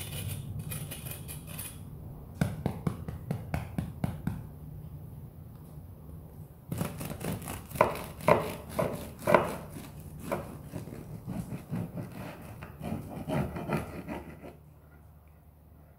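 Serrated bread knife sawing back and forth through a loaf of focaccia on a wooden cutting board, in three runs of rapid strokes, the loudest about eight to ten seconds in.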